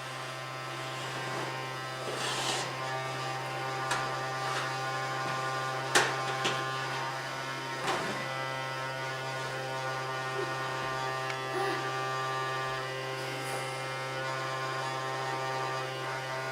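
Small vacuum cleaner's electric motor running with a steady buzzing hum, with a few sharp knocks as it bumps against things.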